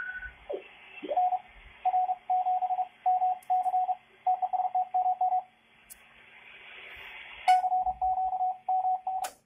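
Audio from the receiver of a UW3DI-II valve ham transceiver. A whistle slides down in pitch as the dial is tuned onto a station, and then a Morse code (CW) signal comes in: a steady beep near 750 Hz keyed in short and long elements over band hiss. There are sharp clicks about 7.5 s in and just before the end, where the signal cuts off.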